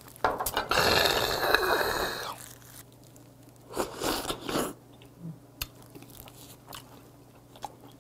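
Close-miked eating sounds: a loud, breathy burst about two seconds long right after a shot of soju, then a shorter slurp about four seconds in as a raw oyster is taken off chopsticks into the mouth, followed by soft chewing clicks.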